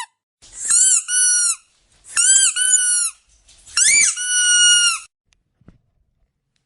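Squeaky dog toy squeezed three times, each a drawn-out squeak that swoops up in pitch and then holds a steady high tone for about a second.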